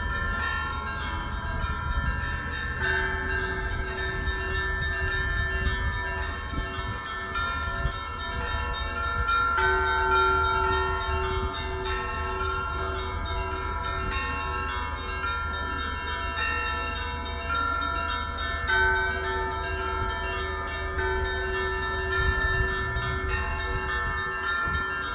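Orthodox church bells ringing a continuous peal, many overlapping tones sustained together, with the set of tones shifting every several seconds.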